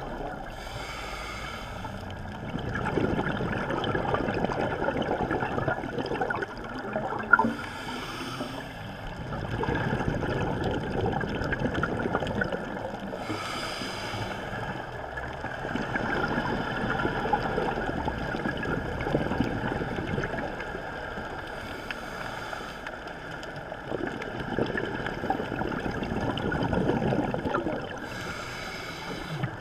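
Scuba diver breathing through a regulator underwater: a short hiss on each inhale, then several seconds of bubbling exhaust on each exhale. About five breaths, one every six to eight seconds, with a single sharp click about seven seconds in.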